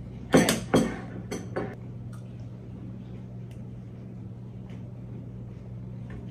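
A few sharp clinks and knocks of tableware, loudest about half a second in: a fork in a ceramic bowl of syrup-soaked mini pancakes and a syrup bottle set down on the table. After that only faint taps over a low steady hum.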